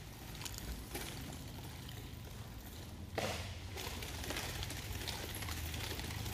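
Quiet hall with a low steady hum; a little past three seconds in, one short whoosh of a nunchaku swung through the air.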